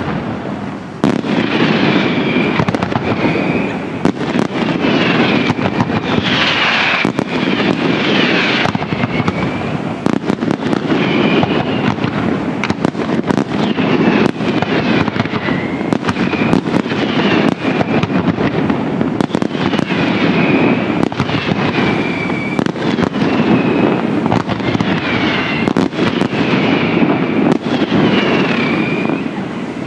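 Daytime fireworks display firing continuously: dense, rapid bangs, crackling and rumbling reports, building about a second in, with short whistles repeating every second or two.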